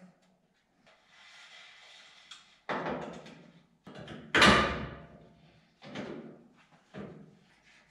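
Four separate clunks and knocks of parts being handled against the machine's sheet-steel body, the loudest about halfway through.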